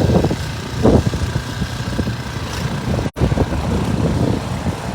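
An engine running, a low uneven rumble, with the audio cutting out for a moment about three seconds in.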